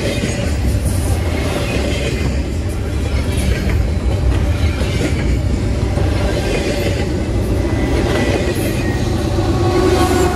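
Double-stack intermodal container train passing close at speed: a steady rumble of the container well cars' wheels on the rails, with scattered clicks. Near the end the diesel engine of the Union Pacific GE ET44AH (Tier 4 GEVO) mid-train DPU locomotive comes up alongside and the sound grows slightly louder.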